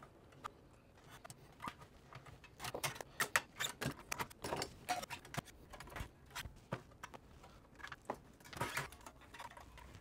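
Light metal clicks, rattles and knocks of a NAS's hard-drive caddies and sheet-metal drive cage being unlatched and pulled out of the chassis. The clicks come in scattered runs, busiest a few seconds in and again near the end.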